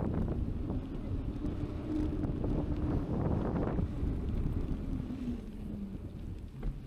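Wind buffeting the microphone of an action camera riding along on a bicycle, a dense low rumble that swells briefly about three seconds in. Under it runs a faint steady hum that drops a little in pitch about five seconds in.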